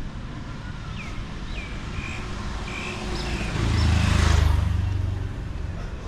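A motor vehicle passes close by on the street, its engine rising to loudest about four seconds in and then fading away.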